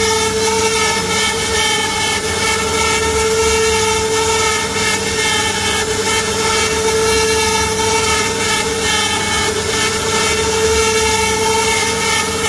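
CNC router spindle running with a steady whine while its bit carves a relief pattern into a wooden panel, with the hiss of the cutting wood under it.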